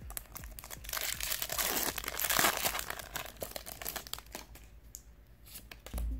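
A foil booster-pack wrapper is torn open and crumpled by hand, with a burst of loud crackling about two seconds in and smaller crinkles and clicks before and after it.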